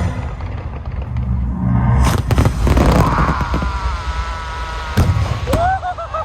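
Fireworks display: a steady low rumble of booms with sharp bangs about two seconds in and again twice near the end.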